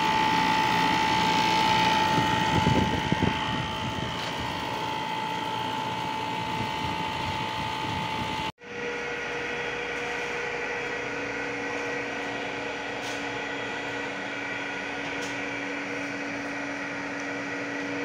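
Single-phase central air-conditioning outdoor unit running, its compressor drawing 21.6 amps, with a steady high whine over the machine noise; the technician says the unit is partially blocked and the compressor overheats and cuts off. About halfway through, the sound cuts abruptly to a different steady machine hum with two low tones.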